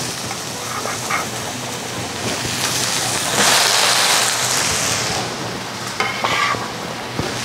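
Diced onion sizzling in hot oil in a cast iron skillet. About three and a half seconds in the sizzle swells louder for a second or two as sliced white mushrooms are scraped into the pan, then settles back.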